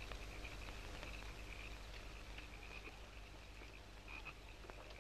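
Night chorus of frogs, a faint steady pulsing chirp at one high pitch, over the constant low hum and hiss of an old film soundtrack.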